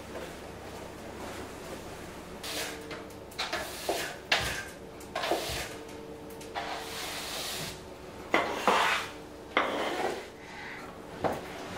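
Long-handled broom sweeping a wooden floor in a series of short scraping strokes, with a few sharp knocks among them.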